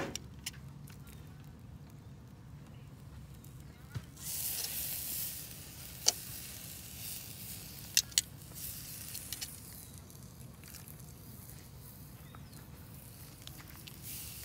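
Marinated meat sizzling as it is laid on a small charcoal grill's wire grate over hot coals. The hiss starts suddenly about four seconds in and slowly dies down, with a few sharp clacks of metal tongs on the grate, two of them close together.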